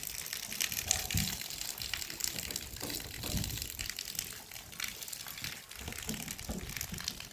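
Water splashing and running, with a few soft low knocks.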